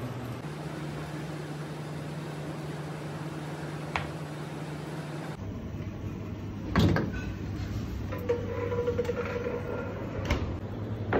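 Steady hum of kitchen equipment, with a short click about four seconds in, a sharp loud knock a little before seven seconds and a lighter click near the end, as an aluminium tray of spice-coated fish is handled at a wire-shelved commercial fridge.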